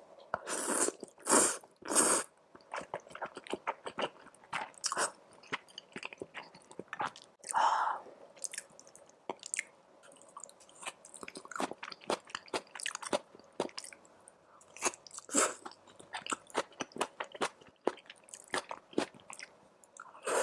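Close-miked eating of tomato beef rice noodles: three loud slurps in the first two seconds and another about eight seconds in, with many short, wet chewing clicks in between.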